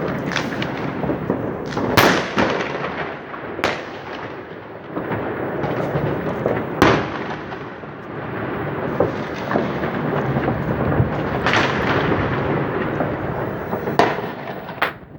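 New Year fireworks going off: a continuous crackle of many bursts, broken every few seconds by sharper bangs, the loudest about 2, 7 and 14 seconds in.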